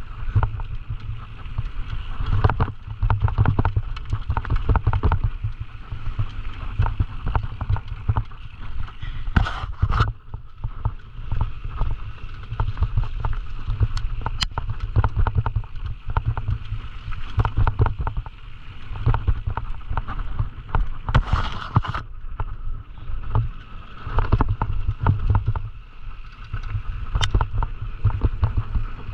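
Scott Gambler 920 downhill mountain bike descending a rough trail, heard from a camera riding along: wind rushing over the microphone with constant irregular rattling and knocking as the bike runs over bumps, and a couple of harder clatters along the way.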